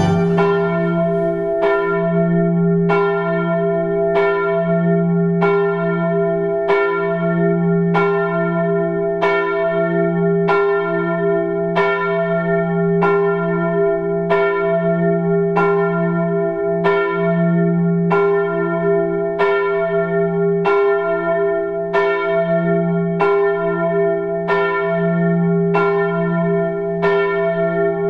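A single large church bell tolling steadily, about one stroke a second, its deep hum ringing on between strokes.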